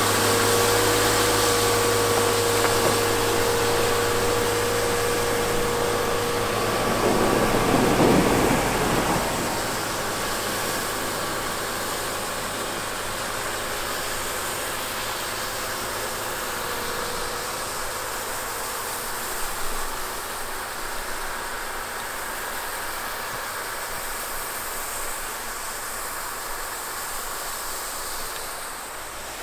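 Volvo EWR150E rail-road wheeled excavator running while its snow sweeper on the tiltrotator clears the track, with a steady hiss throughout. A steady whine and low hum cut out about seven to nine seconds in, after which the machine sounds quieter as it moves away.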